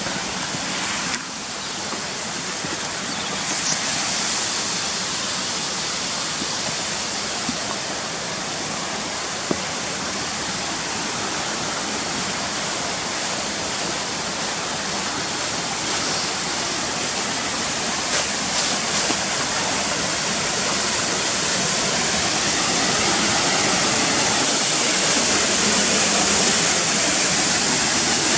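Waterfall pouring down a rocky channel into a pool: a steady rush of falling water that grows gradually louder as it is approached.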